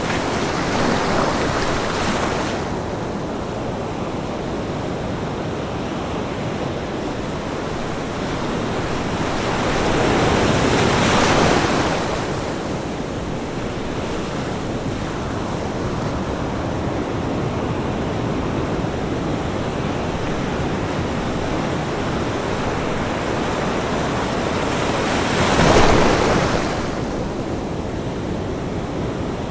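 Ocean waves breaking on a beach, a steady wash of surf with three waves swelling up and crashing louder, the last and sharpest near the end.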